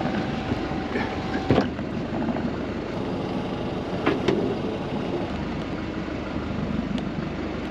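Small fishing boat's engine running steadily, with a few sharp knocks of gear. A thin steady tone cuts off with a knock about one and a half seconds in.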